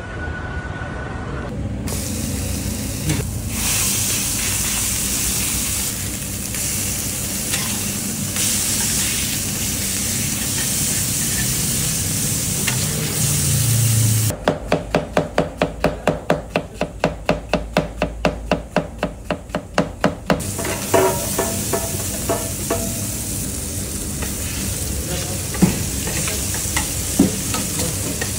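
Hamburger patties and sliced onions sizzling on a flat steel griddle, with a metal spatula scraping and clicking on the plate. In the middle comes a run of sharp, evenly spaced knocks, about four a second, for some six seconds.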